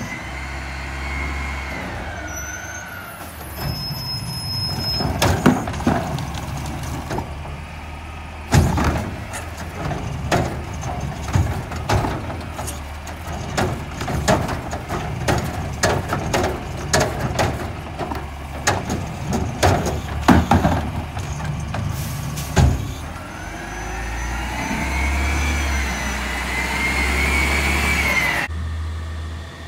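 Mack McNeilus front-loader garbage truck with a Curotto Can arm: engine idling while the arm lifts and tips a cart, with a long run of sharp bangs from the cart knocking against the can. Near the end the engine revs with a rising whine as the truck pulls away past.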